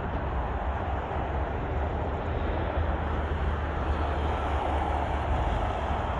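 Steady noise of freeway traffic: a continuous wash of tyres and engines with a low rumble underneath, no single vehicle standing out.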